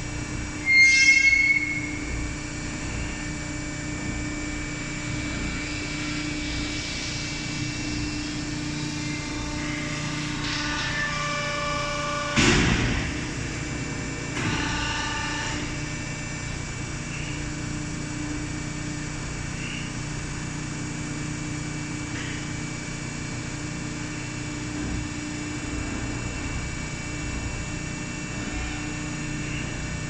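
Hydraulic bagging baler running with a steady hum. A short, loud, high squeal comes about a second in, and a single loud knock comes about twelve seconds in, with brief squealing tones around it.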